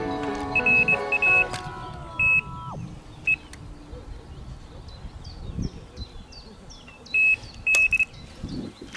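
Electronic carp-style bite alarm beeping in short clusters of one to three beeps, all at the same high pitch: line being drawn through the alarm.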